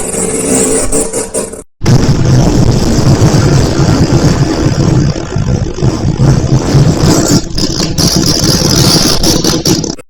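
Fart sound effects: a short pitched one, a sudden cut to silence just under two seconds in, then a long, loud, low and rough one lasting about eight seconds that cuts off abruptly.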